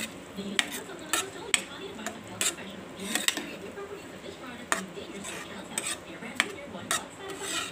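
A utensil stirring and tossing pasta in a pan, with irregular clicks and knocks as it strikes the pan.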